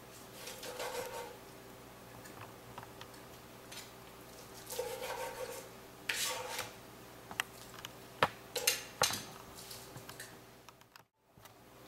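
Chef's knife slicing raw chicken thigh on a plastic cutting board, then scattered clicks and knocks of metal tongs and the knife against the board as the cubed chicken is gathered up, with a few short scrapes.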